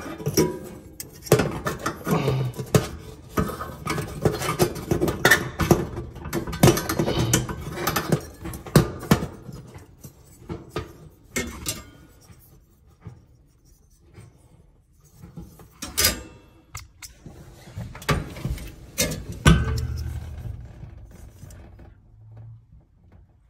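Irregular clicks, scrapes and light metal knocks of an oven igniter and its sheet-metal bracket being worked loose by hand and its wires pulled through the oven floor. The handling is busiest over the first ten seconds, with a sharp click and then a louder knock near the end.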